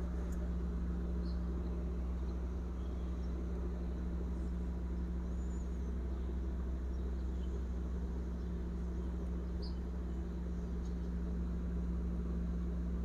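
Steady low hum of room background noise, like a fan or air conditioner, unchanging throughout, with a few faint high chirps.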